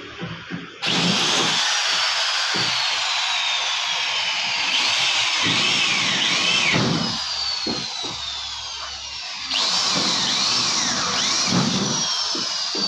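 Corded electric hand drill boring rivet holes through an HPL laminate sheet into a stainless steel gate frame, with a high whine that keeps sliding down in pitch. It starts about a second in, eases off briefly around eight seconds and picks up again.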